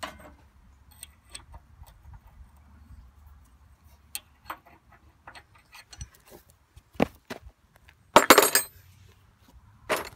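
Hand tools clinking and tapping on metal parts of a riding mower engine while the starter is being unbolted. The clinks are scattered, with a louder rattling clatter about eight seconds in and another sharp clink near the end.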